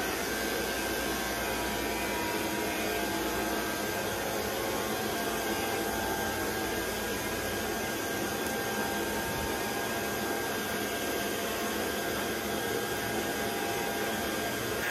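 A Proscenic P11 Smart cordless stick vacuum is switched on with its pet-grooming trimmer attached to the hose. Its motor whine climbs quickly to a steady pitch, then it runs steadily, a high whine over rushing air.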